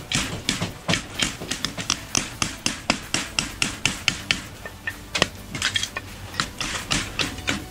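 Slater's hammer tapping, several quick knocks a second and uneven in strength, as natural slate scales are nailed on with a slight clink of slate.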